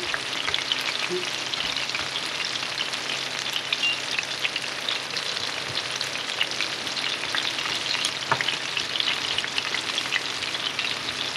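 Panko-breaded shrimp deep-frying in a pan of hot oil: a steady sizzle thick with small crackles.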